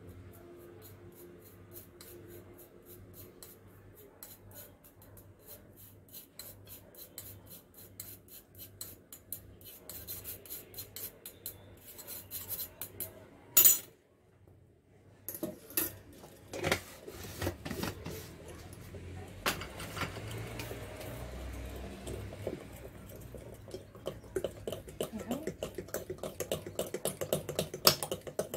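Wire mixer beaters stirred by hand through thick chocolate cake batter, clinking and scraping against a glass bowl in quick strokes, with one sharp knock about halfway through.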